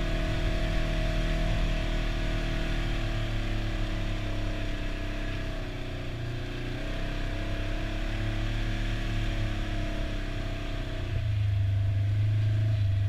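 Side-by-side UTV's engine running as it drives along a dirt trail, its pitch easing off about six seconds in and picking up again, then getting louder and deeper about eleven seconds in.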